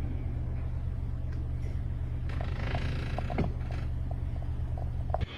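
Steady low drone of a motor vehicle running, with a few faint ticks and one sharp knock about three and a half seconds in. The drone cuts off abruptly near the end.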